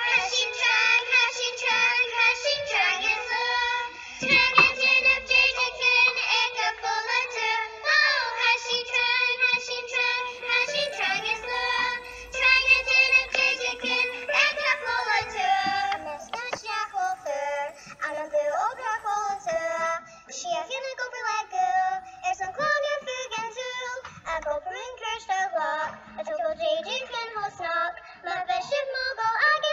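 Children singing a song with musical accompaniment.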